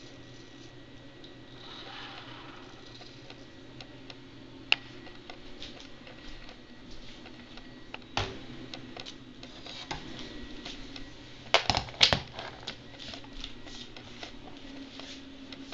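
Scattered clicks and knocks of handling over a low steady hum: a sharp click about a third of the way in, a knock just past halfway, and a quick cluster of loud knocks and clicks about three quarters in.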